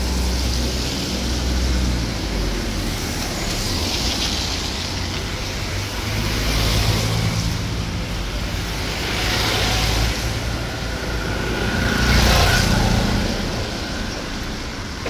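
Cars driving past on a wet street, engines running low under the hiss of tyres on wet asphalt; the hiss swells several times as vehicles pass, loudest with a car going by close near the end.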